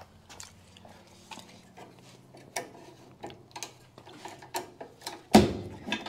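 Scattered light metallic clicks and clinks as a boat trailer's ratchet tie-down strap and its steel hook are handled, with one louder clank about five seconds in.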